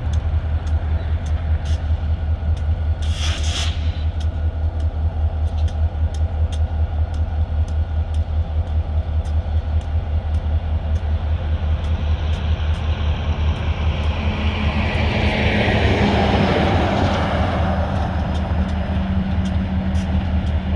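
Semi-truck driving past, its engine and tyres swelling to a peak and fading, over a low, steady, rhythmic engine throb. A short hiss about three seconds in.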